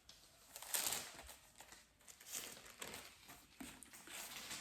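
Faint rustling of thin Bible pages being leafed through, a few soft crinkling bursts.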